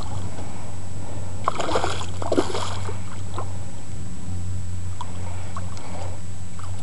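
Hooked redfish splashing and thrashing at the surface of shallow water, in a short burst of splashes about a second and a half to two and a half seconds in, over a steady low hum.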